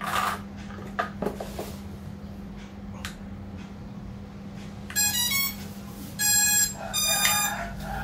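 SJRC F11 Pro drone powering up: a few plastic clicks as the battery is seated, then three loud electronic startup beeps about a second apart, from about five seconds in.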